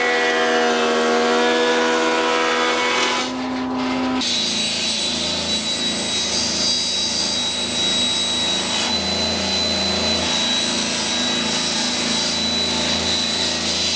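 Stationary woodworking cutter running steadily while an oak board is pushed along its fence to mill a rebate. For the first few seconds, before the machine starts, a different steady drone of several pitched tones is heard.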